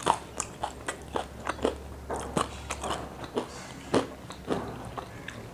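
Close-miked crunching and chewing of crispy KFC fried chicken, with sharp, irregular crunches a few times a second, the loudest right at the start.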